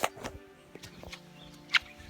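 Background music of sustained tones, cut through by a few sharp clicks or knocks, the loudest right at the start and another near the end.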